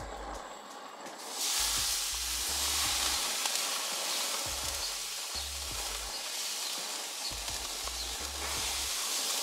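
Flathead catfish fillets marinated in Italian dressing sizzling on a hot grill grate. A steady hiss starts about a second and a half in as the first fillet goes down, and it grows louder again near the end as the second piece is laid on.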